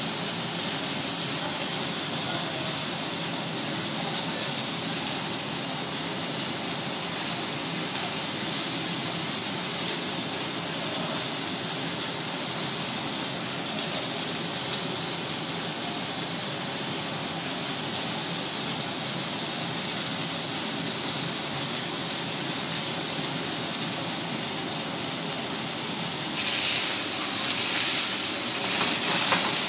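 A steady kitchen hiss runs throughout. Near the end it gives way to louder surges of sizzling as a seasoned fish fillet fries in an oiled pan over a gas burner.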